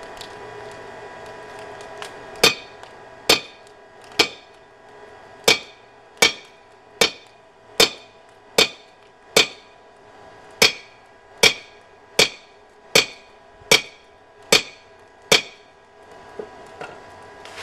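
Hand hammer striking steel on an anvil while forging, about sixteen evenly paced ringing blows, a little more than one a second, over a faint steady hum.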